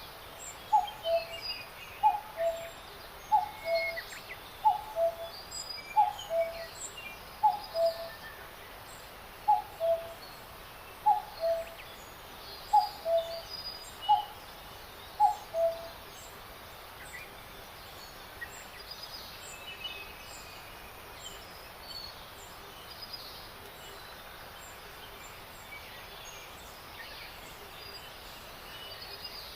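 Birdsong: one bird repeats a low two-note call, the first note higher than the second, about once a second through the first half. Fainter, higher chirps and twitters from other birds run throughout over a steady hiss.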